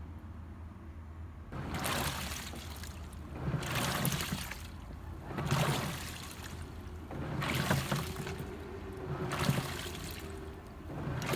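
Washing machine washing: water sloshing in the turning drum in repeated surges, about one every two seconds.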